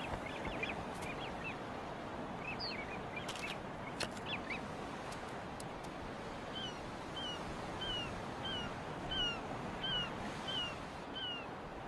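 Birds calling over a steady background hiss. There is a scatter of short chirps in the first few seconds, then from about six and a half seconds a regular series of short falling calls, about two a second.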